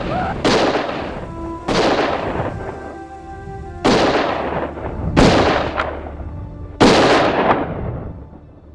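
Five handgun shots spaced one to two seconds apart, each a sharp crack that rings out and dies away over about a second, with a music score underneath.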